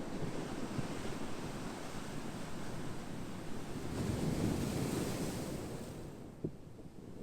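Ocean surf washing in: a steady rush of waves that swells to a peak about four to five seconds in, then falls away. A short click near the end.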